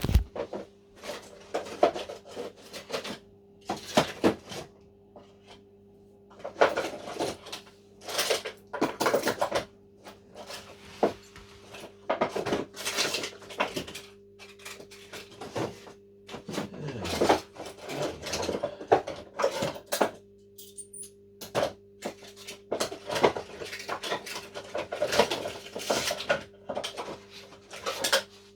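Plastic and metal parts of an espresso machine being handled and pulled apart: irregular clicks, knocks and light clattering, over a steady low hum.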